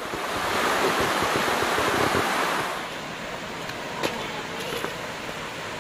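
Shallow creek water rushing over sandstone, a steady noise, with wind buffeting the microphone in the first half. About three seconds in it drops to a softer running flow, with a couple of faint knocks.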